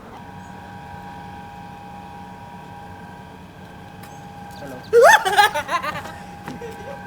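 A steady hum at several pitches, then about five seconds in a sudden loud cry from a person that rises sharply in pitch, followed by a few shorter vocal sounds: a startled shout.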